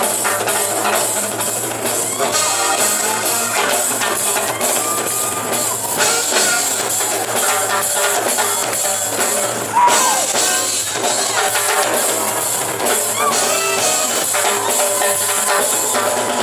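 Live band playing an instrumental funk-pop passage, with drum kit and percussion to the fore.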